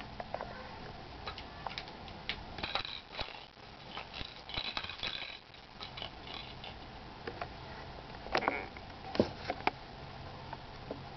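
A Cornish Rex kitten batting a bottle cap across carpet: scattered light clicks, ticks and brief rattles, busiest in a cluster in the middle and another about three quarters through, over a faint steady low hum.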